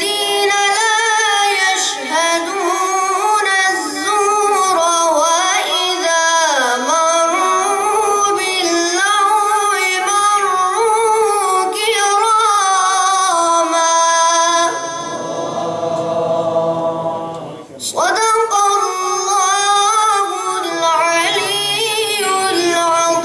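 A boy's high voice chanting Quranic recitation in the melodic, ornamented tajweed style, with winding runs and long held notes. There is one short break about three-quarters of the way through, after which the chant starts again.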